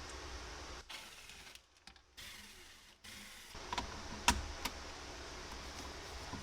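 A few sharp light clicks and taps of small metal parts and hand tools being handled during a carburettor teardown, the loudest a little past the middle, over a steady low hiss that briefly drops away about a second in.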